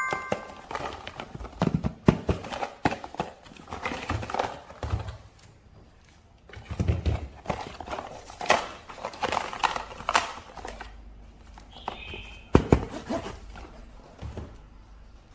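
Irregular plastic clicks, taps and rustling from toy figures and their packaging being handled, growing quieter near the end.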